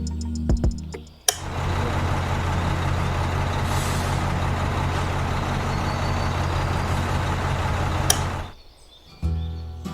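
Small electric motor running steadily for about seven seconds, a low hum with a hiss over it, starting with a click and cutting off shortly after another click.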